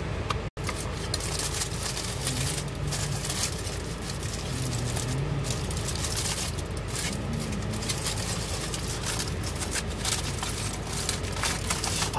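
Rustling and scraping handling noise, irregular and close, over a steady low rumble, with the sound cutting out for an instant about half a second in.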